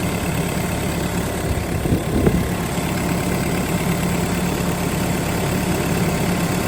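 Bobcat E85 excavator's Yanmar diesel engine idling with a steady hum, heard with the hood open. There is a brief handling noise about two seconds in.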